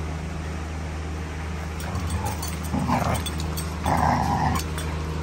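Schnauzer puppy yipping in a few short, high-pitched yelps during rough play with a bigger dog, starting about two seconds in, the loudest around four seconds. Light clicks and a steady low hum sit beneath.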